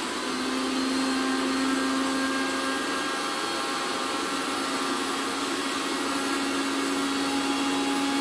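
Preethi mixer grinder running steadily with one constant motor tone, its steel jar grinding mint, coriander leaves, green chillies and ginger.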